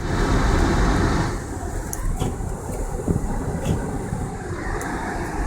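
Car driving on a snow-covered road: steady engine and tyre rumble, with a louder hiss for about the first second and a few light clicks.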